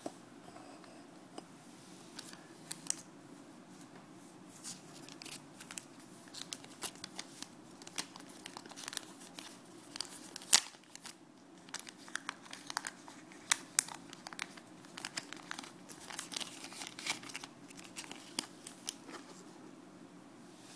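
Plastic packet of fishing hooks crinkling and rustling as it is handled, with many short sharp crackles, the loudest about ten and a half seconds in, over a faint steady low hum.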